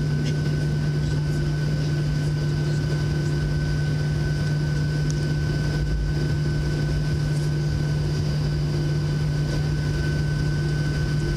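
Boeing 737-700's CFM56-7B jet engines running at ground idle, heard from inside the passenger cabin: a steady drone with a strong low hum and a thin, constant high whine.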